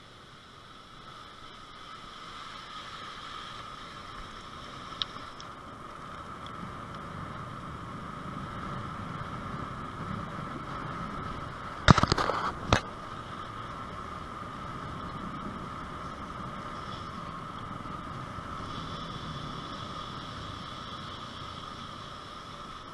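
Bicycle rolling along a paved road, heard from the handlebars: steady tyre and drivetrain noise. About halfway through comes a short burst of loud knocks and rattles.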